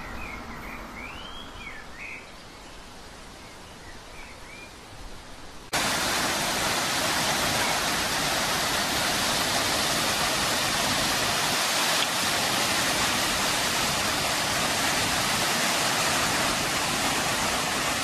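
Quiet outdoor background with a few faint chirps. About six seconds in it cuts abruptly to the loud, steady rush of a waterfall pouring over rocks.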